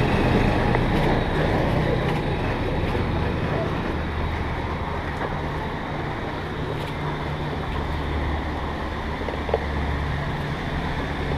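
Busy narrow-street ambience: motor scooter engines and traffic running by with a steady low hum, under a background of people's voices. A single sharp click about nine and a half seconds in.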